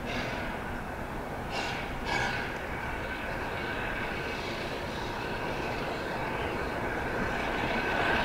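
1917 Baldwin 2-8-0 steam locomotive pulling passenger coaches as it approaches, its running noise growing louder. A few short hisses come in the first couple of seconds, and a thin, steady high squeal, typical of wheel flanges on a curve, sets in about two seconds in and holds.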